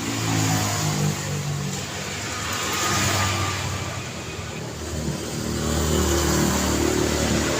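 Road traffic on a city street: cars going by with engines running and tyres hissing, the noise swelling and easing as each vehicle passes.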